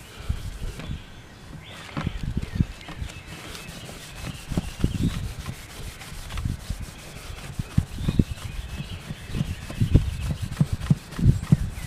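A cotton cloth rubbing compound into the solid spruce top of a Martin acoustic guitar in uneven back-and-forth strokes, buffing out the finish over a repaired top crack.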